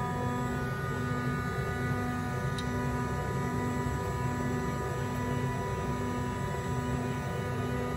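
A steady droning hum made of several held tones, with a low tone pulsing on and off a little faster than once a second.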